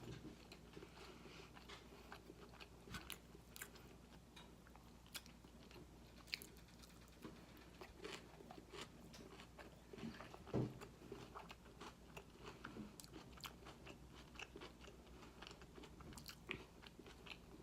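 Faint, close-up mouth sounds of a person eating a kale salad with tempeh: chewing and crunching with many small scattered clicks. A short hum-like sound comes about ten and a half seconds in.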